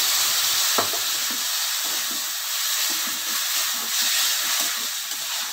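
Water poured into a hot kadhai of fried potatoes, cauliflower and spiced masala, hissing and sizzling loudly as it hits the hot oil, with one light tap about a second in. The sizzle eases gradually as the water settles in the pan.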